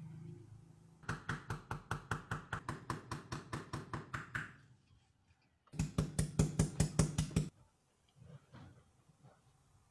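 Small hammer tapping the thin sheet-metal hull of a toy pop-pop boat, resting on a cloth pad, to knock out its dents. A run of about six light taps a second lasts some three seconds, then after a short pause comes a shorter, louder run of taps.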